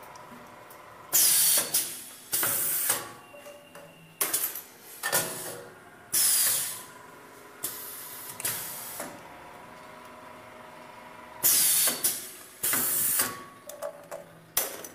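Pneumatic cylinders on an automated stamping die cycling: a string of sudden clacks, each followed by a short hiss of exhausted air, about a dozen over the stretch. A lull of a couple of seconds falls in the middle, with a faint steady machine hum underneath.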